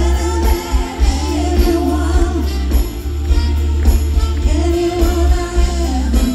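Live pop band through an open-air PA system, with women singing the melody over bass, drums and guitars.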